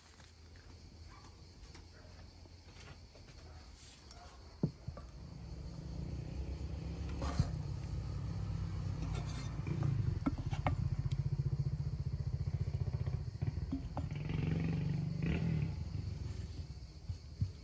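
A deep, uneven rumble that swells about five seconds in and stays loud, with a few sharp knocks of wooden serving spoons against china plates and pots as food is dished up.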